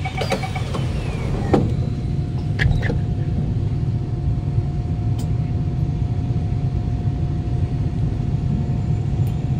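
Kawasaki C151 train's GTO-VVVF inverter and traction motors pulling away from a station, a steady whine over the low rumble of the moving car, heard from inside the carriage. The pickup sounds normal: the motor fault on this car has been fixed. A row of beeps ends just at the start, and there is a single knock about a second and a half in.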